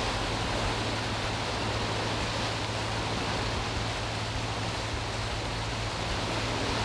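Boat running underway: a steady rush of churning wake water over a low, steady engine drone.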